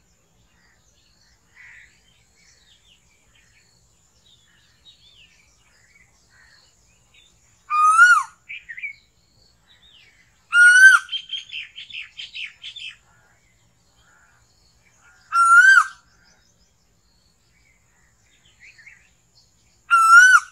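Asian koel (koyal) calling: four loud, short rising calls a few seconds apart. After the second call comes a quick run of higher chattering notes.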